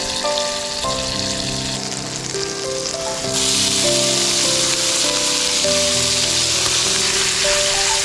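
Butter sizzling in a hot cast iron skillet; about three seconds in, diced bacon drops into the pan and the sizzle suddenly gets louder and stays loud. Background music plays over it.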